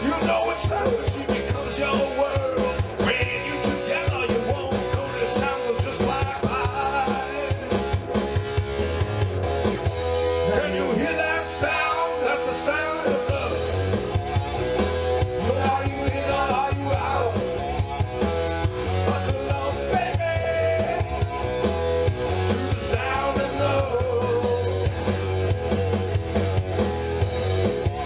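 Rock band playing at full volume: guitar and bass over a steady drum beat.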